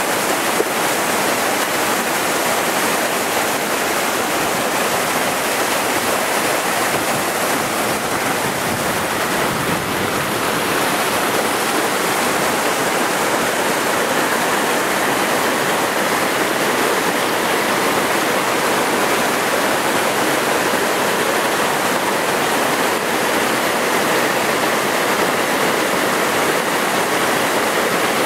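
Mountain stream rushing over rocks and small cascades: a loud, steady rush of water.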